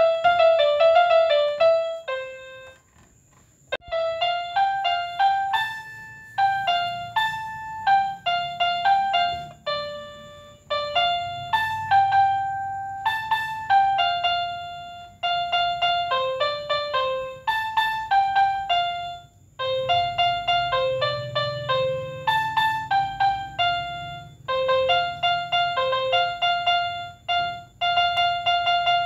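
Electric pianika (61-key electronic keyboard) playing Indonesian 'telolet' bus-horn tunes: short phrases of quick notes with brief pauses between them. About two seconds in, the playing stops for about a second.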